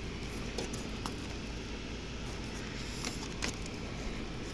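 A few faint taps and scuffs of a hand on a perforated metal gutter guard and the asphalt shingle edge above it, over a steady low background rumble.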